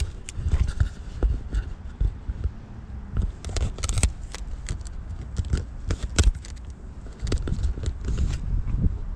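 Handling noise from an RC car's plastic transmitter being fitted and strapped onto a controller: irregular sharp clicks and short scrapes of plastic over a low rumble.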